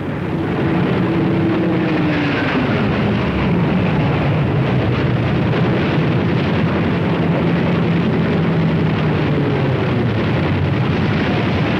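Propeller aircraft engine running loud and steady under a dense rushing noise, its engine tone dropping in pitch about two seconds in.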